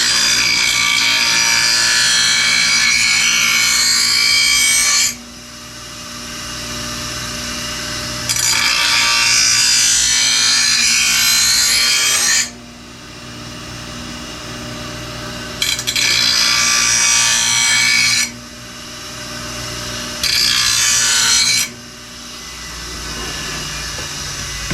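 An electric grinder sharpens a lawnmower cutting blade. Its motor runs steadily throughout. Four loud, harsh grinding passes come as the blade's top edge is held to the wheel, with the motor running on alone between them.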